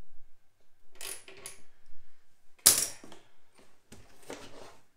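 Clicks, clinks and rattles of a new aluminium radiator and its packing being handled in a cardboard box, with one louder sharp knock about halfway through.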